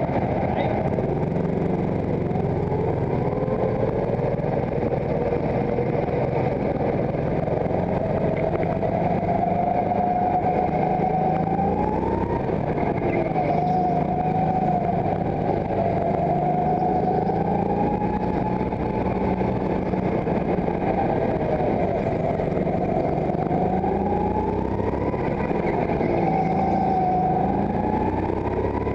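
Go-kart motor running under the driver, its pitch rising and falling again and again as the throttle is opened and eased through the corners, heard from the driver's seat.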